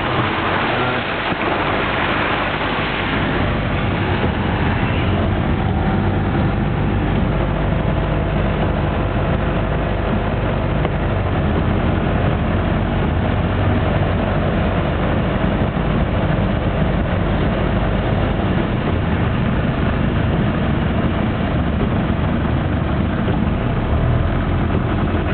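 Car driving along a flooded road, heard from inside: steady engine and tyre noise with water hissing under the wheels, louder for the first few seconds.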